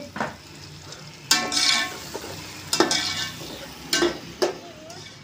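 Steel ladle stirring whole spices and chillies frying in hot oil in an aluminium pot, with a light sizzle under it. The ladle scrapes and knocks against the pot several times, the loudest scrape about a second in.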